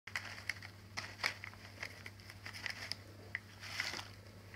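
A calico cat crunching dry cat treats up close: a run of small, irregular clicks and crackles.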